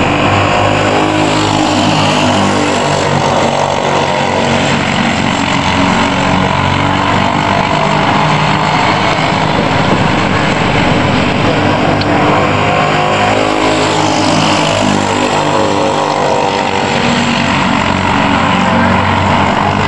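Several Briggs & Stratton Animal single-cylinder four-stroke kart engines racing, their overlapping engine notes rising and falling in pitch as the karts come on and off the throttle through the corners.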